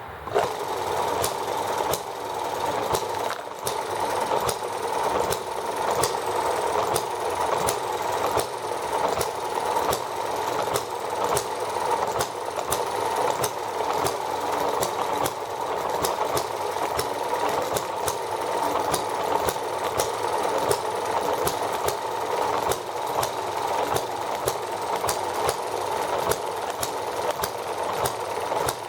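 Small ET6 model hit-and-miss engine running on white gas: a steady mechanical clatter with sharp firing pops at short, uneven intervals. It gets loud abruptly right at the start and keeps running unchanged.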